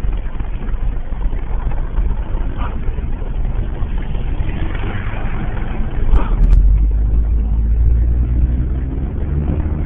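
Car cabin noise while driving: a steady low engine and road rumble that grows louder about six seconds in, with a few faint clicks.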